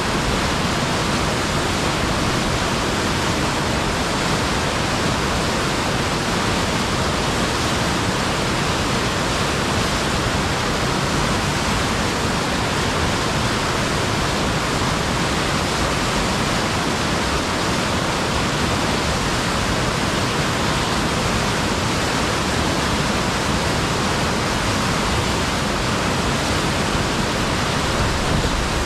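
River rapids rushing in a steady roar of whitewater pouring over rocks.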